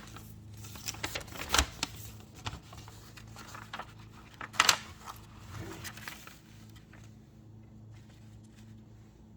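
Handling of paperwork and packaging: paper rustling with scattered clicks and light knocks, the two sharpest about one and a half seconds in and just before five seconds in. It grows quieter in the last couple of seconds, over a steady low hum.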